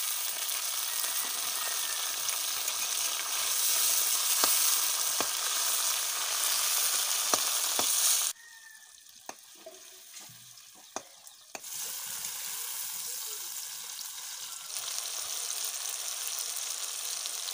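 Sliced tomatoes, onions and dried red chillies sizzling in hot oil in a metal kadai, with a metal spatula stirring and clicking against the pan. The sizzle cuts off abruptly about eight seconds in, leaving a few sharp knocks, then comes back more quietly about three seconds later.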